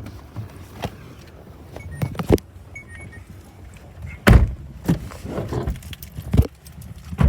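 A string of knocks and thumps from someone climbing into a car: a door, the seat and keys being handled, with the loudest thump about four seconds in. A low steady rumble runs underneath.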